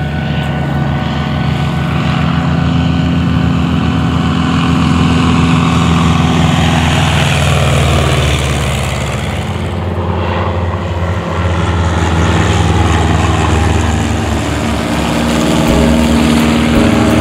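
Single-engine floatplanes' piston engines and propellers droning as they fly low past, the sound swelling and shifting in pitch as a plane goes by about halfway through.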